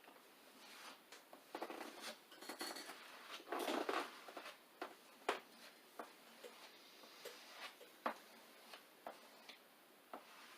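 Plastic kitchen spatula scraping over a vinyl windshield decal to press out air bubbles. The scraping is loudest for a few seconds early on and comes as scattered clicks and ticks after that.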